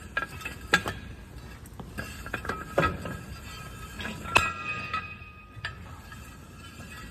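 Steel jack stands being pulled out from under a truck axle: a series of metal clanks and clinks, each ringing briefly, with the loudest clank about four seconds in.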